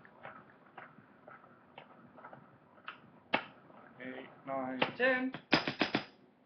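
Pestle grinding snuff powder in a small mortar: faint scraping and tapping, with a sharper knock of the pestle against the bowl about three seconds in and a few more near the end. A man's voice sounds briefly just before those last knocks.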